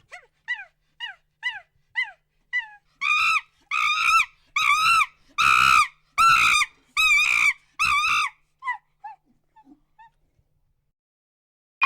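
A dog yelping in a repeated series: short, falling yips about two a second that swell into a run of louder, longer yelps midway, then fade back to faint yips.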